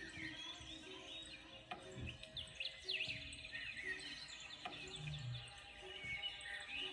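Small birds chirping and twittering in the background, many short quick calls overlapping, with a couple of soft low thumps.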